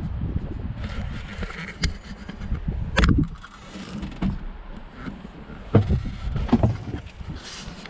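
Uneven low rumbling noise with several sharp knocks and thumps scattered through it.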